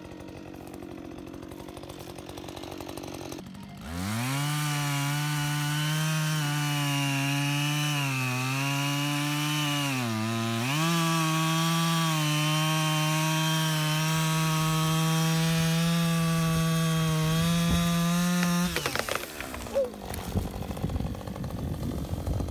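Husqvarna 562 XP two-stroke chainsaw at idle, then pulled up to full throttle about four seconds in to cut through a fallen pine trunk at its root ball. The engine note sags twice under load, then holds steady before it cuts off sharply. The severed stump and root ball then tumble down the dirt bank with a run of irregular thuds and scraping earth.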